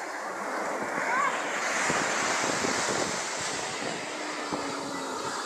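Surf breaking and washing up a sandy beach, a steady rush of foaming water that swells louder about a second in. Wind buffets the microphone.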